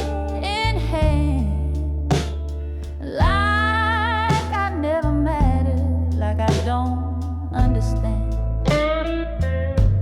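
Slow blues music: a bending, wavering lead melody in three phrases over held bass notes, with sharp percussive accents.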